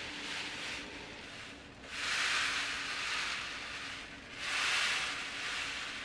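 Dried beans rolling and sliding across a woven bamboo sieve basket (zaru) as it is tilted back and forth, a rushing hiss that swells and fades three times: the traditional foley imitation of ocean waves washing in and drawing back.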